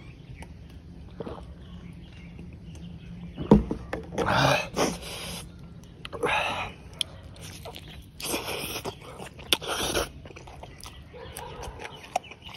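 Close-up eating sounds: bone-in chicken being torn apart by hand and chewed, in several short rasping bursts, with a sharp click about three and a half seconds in.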